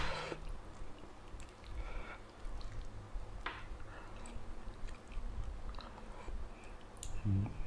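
A person chewing a mouthful of food, with soft wet mouth clicks and smacks. A short hummed voice sound comes near the end.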